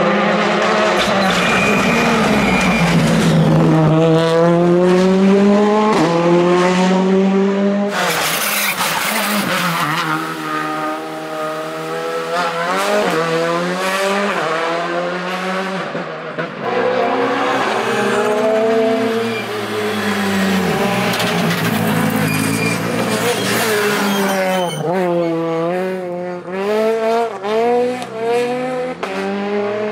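Rally cars driven flat out, one after another: engines revving hard, climbing in pitch through each gear and dropping on lifts and shifts, with sudden changes from one car's pass to the next.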